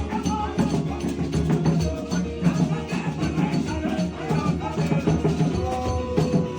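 Gospel worship music in a passage without words: held chords over steady percussion with shaker and wood-block-like strokes.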